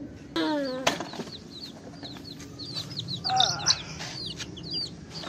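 Chicks peeping: many short, high, rapid peeps throughout, with two louder, lower, falling calls about half a second in and past the middle. There is a sharp knock about a second in.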